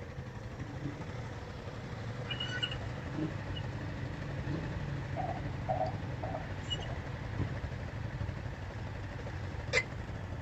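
Four-wheeler (ATV) engine idling with a low, steady rumble, with a sharp click near the end.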